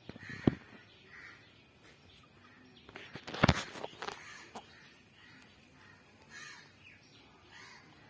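Crows cawing several times, with a few sharp knocks, the loudest about three and a half seconds in.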